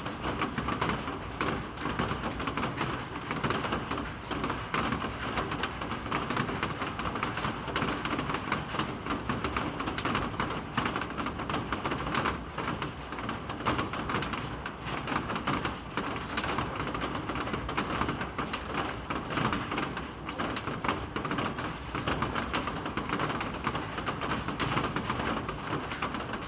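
Steady rain, a dense continuous pattering of many small drops striking a surface.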